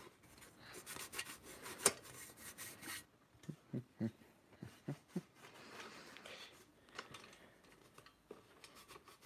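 Cloth rubbing against the inside of a WWI German steel helmet as the dust is wiped off, a scratchy rub in quick strokes with a sharp click about two seconds in.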